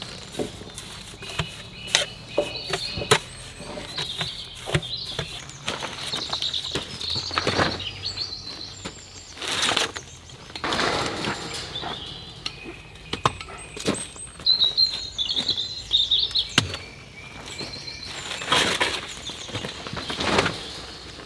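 Birds chirping outdoors over a string of irregular sharp knocks and a few longer rustling, scraping noises from hand work on site.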